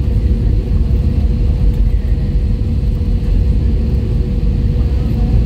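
Cabin noise of an Airbus A320neo with Pratt & Whitney PW1100G geared turbofans rolling on the ground: a loud, steady low rumble with a thin, steady hum above it.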